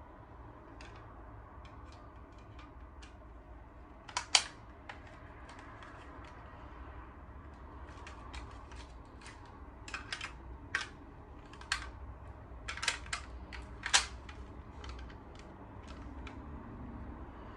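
Scattered light clicks and taps from a plastic smoke alarm and its mounting bracket being handled and fitted together, thickest in the second half, with the sharpest clicks about four seconds in and near fourteen seconds.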